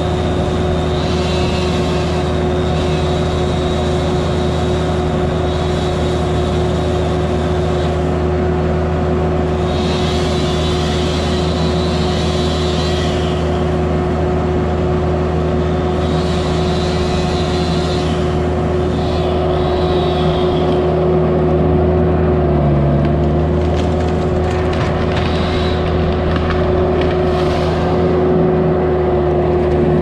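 Vermeer S800TX mini skid steer engine running steadily while pulling a tree over by a rope tied to its attachment. The engine pitch dips briefly about two-thirds of the way through, and a higher hiss comes and goes.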